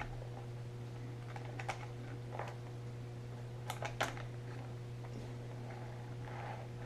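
Steady low electrical hum from a model train transformer under power, with a few light, sharp clicks from handling wires and small parts. The tender's whistle does not sound.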